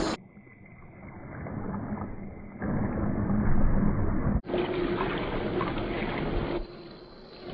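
Water churning and splashing as a 1/10-scale RC crawler ploughs through muddy floodwater, slowed to half speed so it sounds deep and dull. It quietens abruptly just after the start, swells, then cuts to a louder, brighter splash at about four and a half seconds in.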